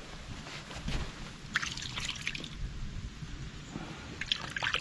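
Muddy puddle water splashing and dribbling as a hand swishes a mud-caked quartz crystal in it to rinse it off, in two spells: about a second and a half in and near the end.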